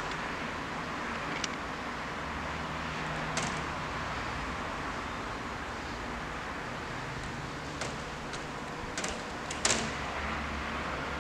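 Steady city background noise with a low hum, broken by a few short sharp clicks or knocks, the loudest near the end.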